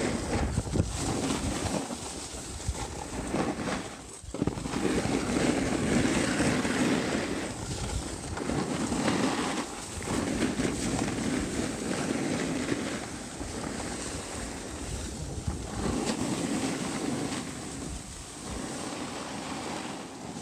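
Skis scraping and hissing over packed snow with wind buffeting the microphone, swelling and easing every couple of seconds.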